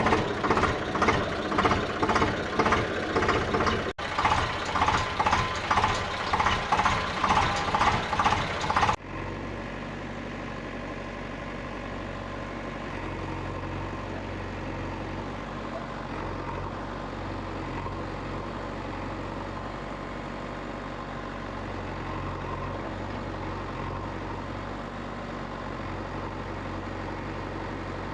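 An engine running, loud and pulsing about twice a second at first, then cutting abruptly after about nine seconds to a quieter, steady idle.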